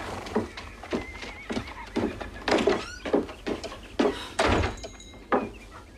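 Footsteps and knocks on wood, with a horse neighing in the street. About four and a half seconds in, a door shuts with a heavy thump.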